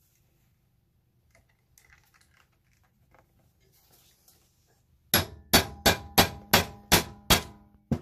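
Hammer striking a snap-setting tool about eight times in quick succession, about three blows a second, each a sharp metallic clang with a short ring, setting a large snap into leather. Before the blows, only faint handling noises.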